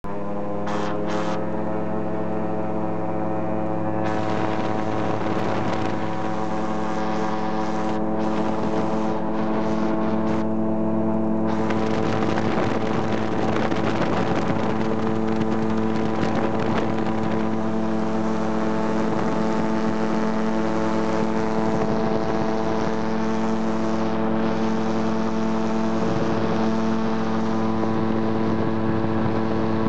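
Quicksilver GT-500 ultralight's engine and propeller running at steady takeoff power, heard from inside the open, doorless cabin. Wind rush comes in about four seconds in and grows stronger around eleven seconds as the aircraft gathers speed and lifts off.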